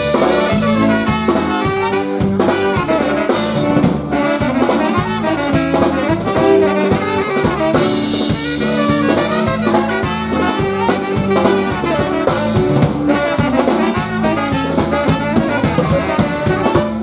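Live polka band playing the instrumental opening of a polka: a concertina leads the tune over a drum kit keeping a steady, even beat and a bass line.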